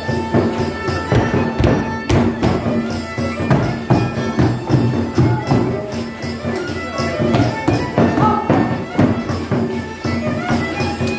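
Village folk tune played on a violin, with a cymbal struck with a stick in a steady beat alongside.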